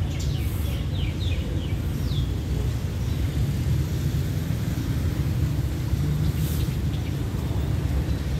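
Steady low rumble of outdoor ambience, with a few short bird chirps in the first two seconds.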